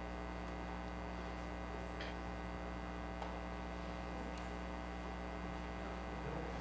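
Steady electrical mains hum in the audio feed, with a few faint clicks spread through it.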